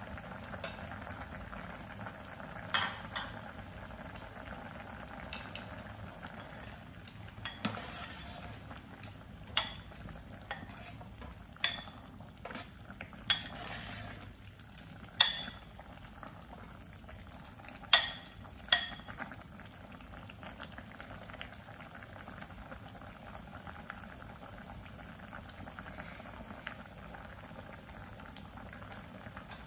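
Pot of chicken soup boiling steadily with a continuous bubbling. From about 3 to 19 seconds a ladle stirs it, knocking against the pot in about eight sharp clinks, after which only the boiling goes on.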